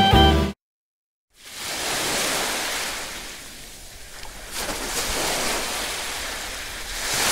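Music stops suddenly about half a second in. After a brief silence a rushing noise rises, dips and swells again.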